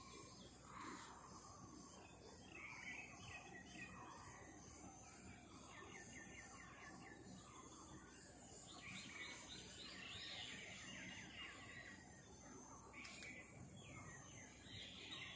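Faint birds chirping outdoors, with short rapid trills coming and going every few seconds over a steady high-pitched hiss. A single sharp click sounds near the end.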